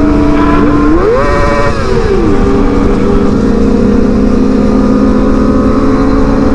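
Kawasaki ZX25R 250 cc inline-four engine under riding, with heavy wind noise. The engine note rises steeply about a second in and holds briefly. About two seconds in it falls to a steady note a little lower than at the start, and stays there.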